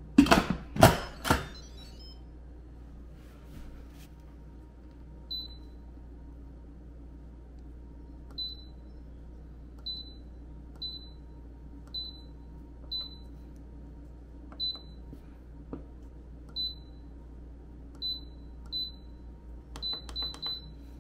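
Instant Pot Duo lid clunking onto the pot, then the control panel giving a short high beep at each button press, about a dozen beeps one to two seconds apart with a quick run of three near the end. The panel answering every press shows the pot working again after its faulty pressure sensor, the cause of the C6 error, was replaced.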